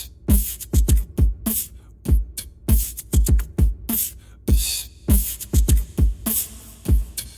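Background music: a bare hip-hop-style beat of deep kick-drum thuds and crisp snare and hi-hat hits, with no melody.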